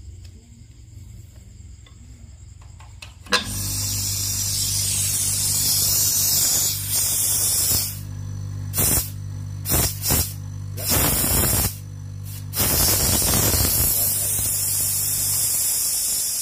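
Air-conditioner rotary compressor switched on with a click about three seconds in. It runs with a steady electric hum while compressed air hisses loudly from its outlet hose. The hiss cuts off briefly several times; near the end the motor stops and the hiss carries on, fading.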